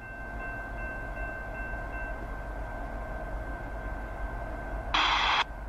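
Approaching freight train heard from a distance: a low rumble under a few steady high-pitched tones. Near the end a short, loud burst of hiss starts and stops abruptly.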